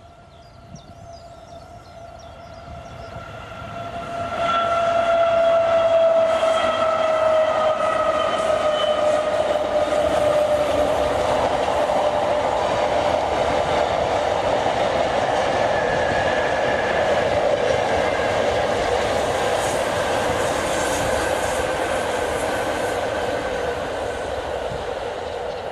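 Class 90 electric locomotive hauling a container freight train past: a tone from the locomotive slides down in pitch as it goes by about four to ten seconds in, then the container wagons run past with steady rolling noise that eases slightly near the end.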